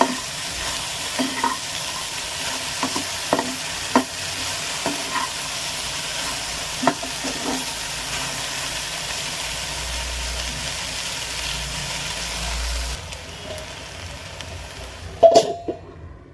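Sliced okra frying in oil in a pan, sizzling steadily while a spatula stirs it, knocking against the pan every second or so. The sizzle drops about 13 seconds in, and a sharp clatter comes near the end.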